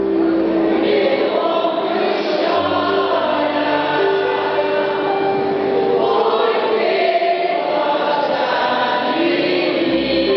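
Senior citizens' mixed choir of men and women singing together, holding long notes that change pitch as the phrase moves on.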